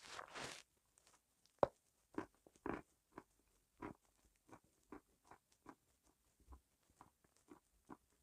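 A bite into crunchy food followed by close-up crunchy chewing, the crunches coming about twice a second and growing fainter toward the end.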